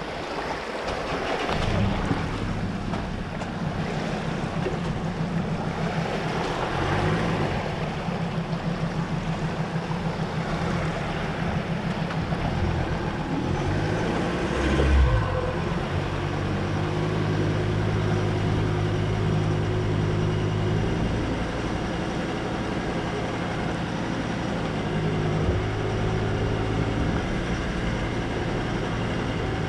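A tow vehicle's engine running steadily as it pulls a boat on its trailer out of the water and up a sand beach on a long tow strap. There is a single thump about halfway through.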